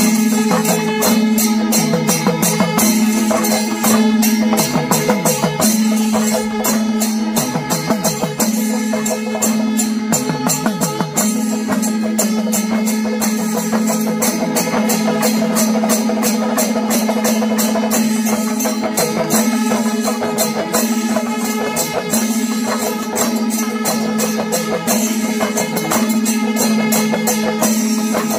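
Kerala temple-festival percussion ensemble playing: rapid, even cymbal and drum strokes under a wind instrument holding a steady note that bends and wavers in pitch now and then.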